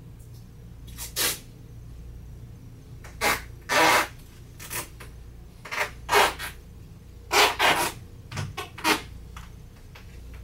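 Handling noise: about a dozen brief rustles and scrapes, several in quick clusters, over a faint steady low hum.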